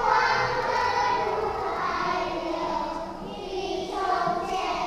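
A group of children singing together in phrases.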